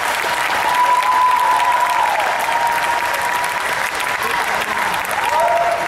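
Concert audience applauding and cheering, with long whistles rising and falling above the clapping, and a fresh whistle near the end.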